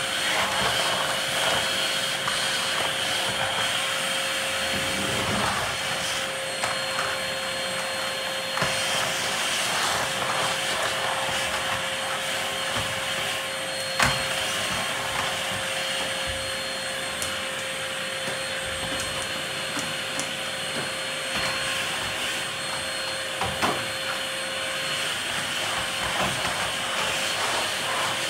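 Canister vacuum cleaner running steadily with a constant motor whine as its floor nozzle is worked over a tiled floor. Two sharp knocks come through, one about halfway and one near the end.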